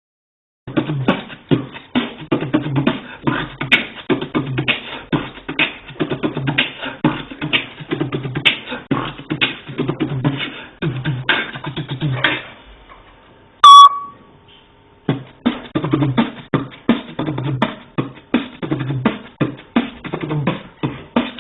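Beatboxing: a fast run of vocal kick, snare and hi-hat sounds that stops about two thirds of the way through. In the pause comes one short, shrill, very loud call from the parrot, and then the beatboxing starts again.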